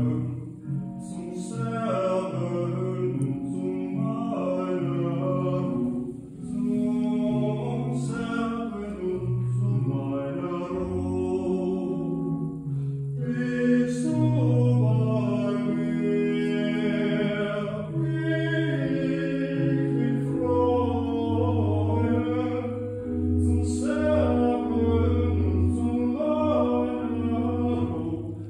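A man singing a slow song with church organ accompaniment: held organ chords under a sung melody with vibrato.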